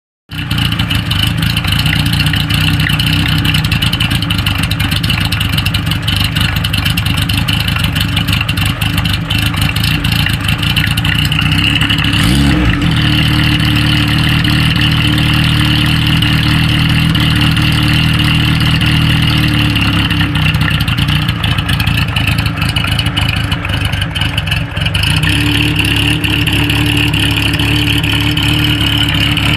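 Kawasaki Z1's air-cooled inline-four running through a Tokyo Tekkan hand-bent early-type exhaust with an S322 silencer, mostly at a steady idle, with one short throttle blip about twelve seconds in.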